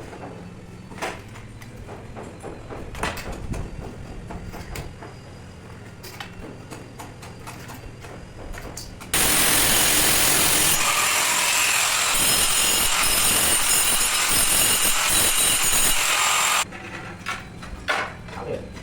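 Scattered knocks and clicks over a low hum, then a power tool cutting: a loud, steady rushing noise that starts suddenly about nine seconds in and cuts off about seven seconds later, followed by a few more knocks.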